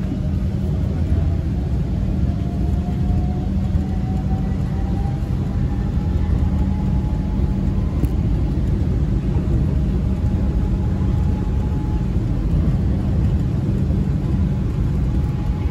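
Bangkok MRT Yellow Line monorail train running, heard from inside the carriage: a steady low rumble, with a faint motor whine that rises a few seconds in as the train picks up speed and then holds steady.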